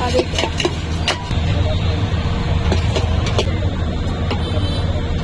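Busy street ambience: a steady low rumble of road traffic with a few scattered light clicks and faint voices.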